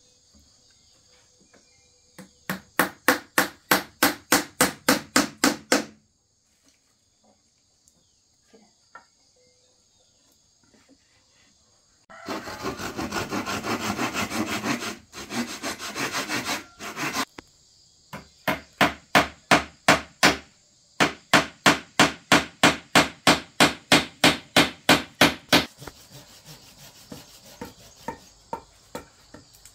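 Hand tools working wood: runs of rapid, regular strokes on wood, about four a second, with a stretch of continuous scraping in the middle, as when building wooden furniture.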